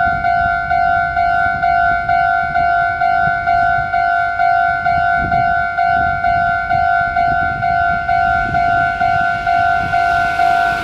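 Electronic Japanese railway level-crossing alarm sounding a steady two-tone beep about twice a second, warning of an oncoming train. The rumble and hiss of the approaching Meitetsu train grow underneath it near the end.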